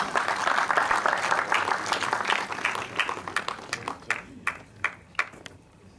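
Audience applause, dense at first, thinning to a few scattered single claps about four to five seconds in before dying away.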